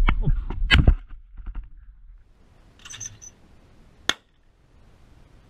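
A shotgun shot fired at a clay target under a second in, sharp and the loudest sound, with a smaller report just before it; then a quiet stretch with faint clicks, some clinking, and one sharp crack about four seconds in.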